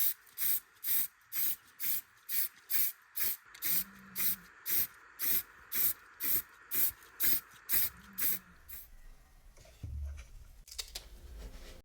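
Trigger spray bottle squeezed over and over, with short sharp hisses about twice a second that stop about nine seconds in, followed by a few faint handling clicks.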